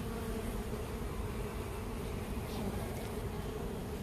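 Honeybees on the frames of an opened hive buzzing in a steady, even hum.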